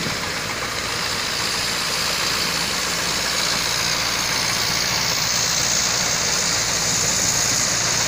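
Engine of a small wooden fishing boat running steadily as it motors past, over a steady hiss.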